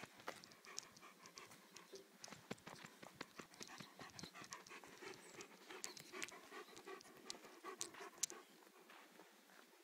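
A German shepherd-type dog panting quickly from play, with many small clicks and taps mixed in and a sharper click near the end.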